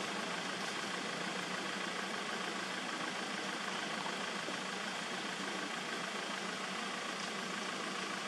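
Steady, unbroken droning hum with hiss, holding at one level with no distinct events.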